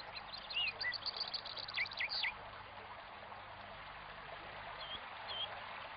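European goldfinches twittering: a quick run of high, tinkling chirps and short gliding notes for the first two seconds or so, then a few single calls near the end, over a faint steady hiss.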